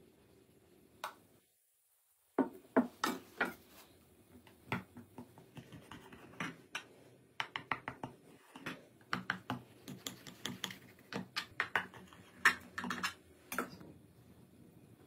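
Irregular sharp taps and clicks of a metal knife tip striking a glass baking dish as it is pushed down through a chocolate-glazed cake. They begin about two seconds in, after a moment of dead silence.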